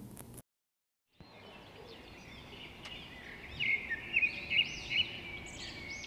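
Small birds chirping in quick runs of short, high, repeated calls over a faint outdoor background hiss, the chirps growing louder from about three and a half seconds in. The sound cuts out to complete silence for a moment just after the start.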